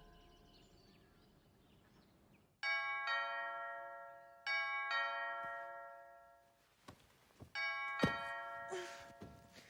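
Two-note ding-dong doorbell chime rung three times, the third ring coming after a longer pause.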